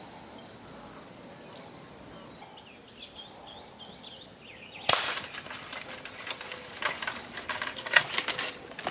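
Small birds chirping, then about five seconds in a single sharp crack from a PCP air rifle shot, followed by several seconds of crackling and rustling of leaves and branches in the canopy.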